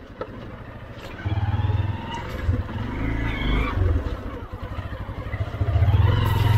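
Motorcycle engine running on a trail, swelling and dropping in loudness, loudest about a second in and again near the end.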